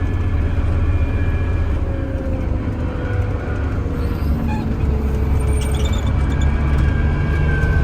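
Torque-converter log skidder's diesel engine running steadily at a little over half throttle as the machine is driven down the road: a continuous low drone.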